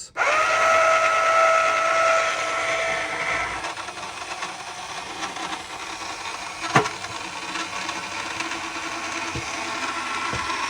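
Small electric motor switched on for a test run, spinning up quickly and running with a steady high whine. One sharp click about seven seconds in.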